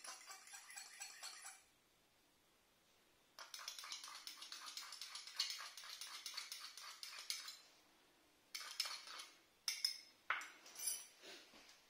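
Handling noise: fast, fine scraping clicks in two runs, a short one and one of about four seconds, with a pause between, then a few short bursts near the end.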